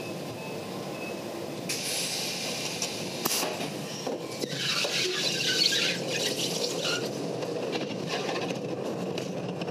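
Wooden roller coaster train running on its track with a squeal, louder for a stretch past the middle.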